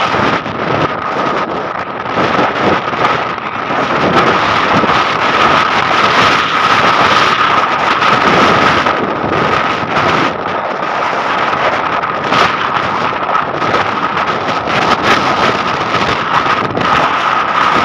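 Strong sandstorm wind buffeting the phone's microphone, loud and gusty, with a thin steady high tone underneath.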